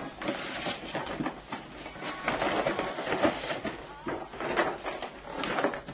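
Rustling and crinkling of a collectible figure's packaging being opened and handled, in irregular bursts with small clicks and knocks.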